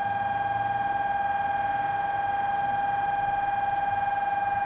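A long, steady, high warning tone with a slight warble.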